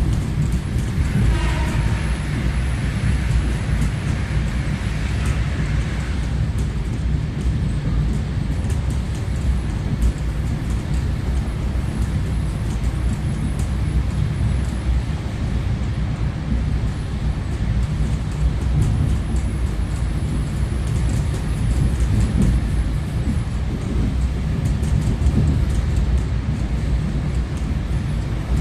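Suburban electric train running at speed, heard from inside the passenger car: a steady low rumble of wheels and motors. A higher-pitched sound rises over it for a few seconds shortly after the start.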